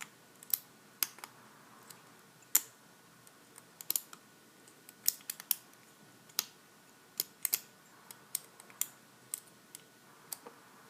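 Small sharp metallic clicks at irregular intervals as lock picks and a tension wrench work the pin stack of a Master Lock 410 lockout padlock.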